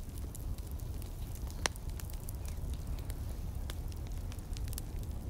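Fire crackling: scattered sharp pops over a low steady rumble, with one louder pop about a second and a half in.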